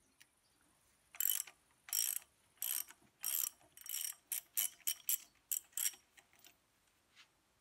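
Socket ratchet wrench clicking in repeated back-strokes as a spark plug is unscrewed from a Rotax 914 cylinder head. About a dozen short ratcheting bursts, coming shorter and quicker after the first few.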